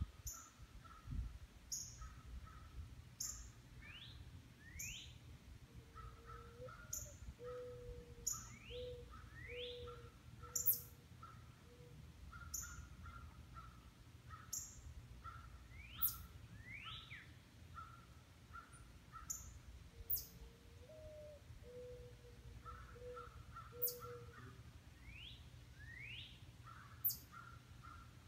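Several wild birds calling from the trees: repeated rising whistled calls, short high chirps, and a quicker pulsed call. A low series of steady, evenly spaced notes comes twice, once early and once late.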